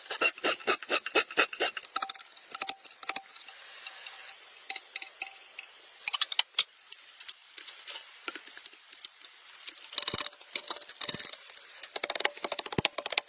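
A quick, even run of sharp taps, about five a second, for the first two seconds, then scattered clicks and taps over a steady high hiss.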